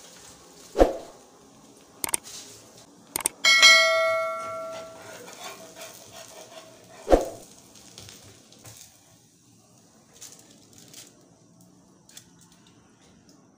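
Metal cookware knocking as a spatula works a frying pan: dull thumps near the start and about seven seconds in, a few sharp clicks, and a metal clang about three and a half seconds in that rings out for about a second and a half.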